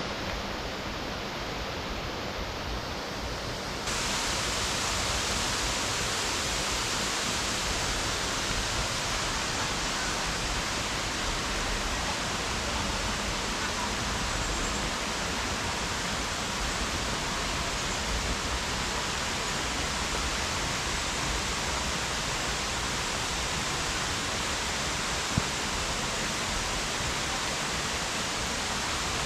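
Waterfall rushing: a steady, even roar of falling water that jumps louder and brighter about four seconds in.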